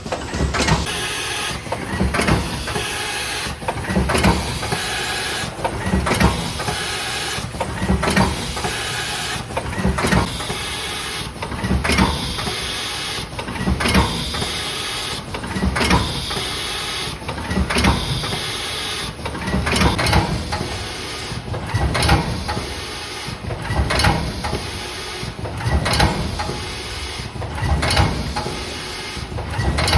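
Ten-lane liquid sachet filling and sealing machine for cough syrup running. It repeats a cycle of mechanical knocks and clatter about every two seconds.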